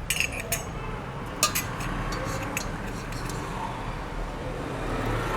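Light clinks and taps of a pot and kitchen vessels as the boiled herbal decoction is poured, with a sharper clink about a second and a half in.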